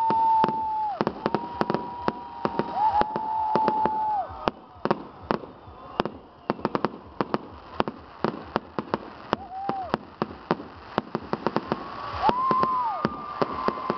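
Fireworks display: rapid bangs and crackling from aerial shells bursting overhead, with several long, steady whistles mixed in during the first few seconds and again near the end.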